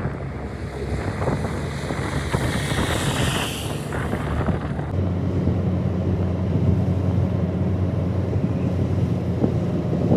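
An engine running steadily with a low hum that settles in about halfway through, under a hiss that fades out around the same point.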